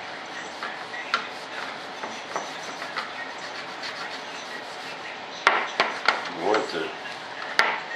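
Paste wax being rubbed by hand into an epoxy mold, a steady scrubbing on the hard mold surface, with a few sharp knocks about five and a half seconds in and again near the end.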